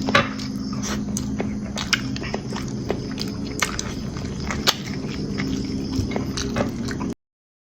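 A person eating, with chewing and scattered sharp clicks over a steady low hum; the sound cuts off suddenly about seven seconds in.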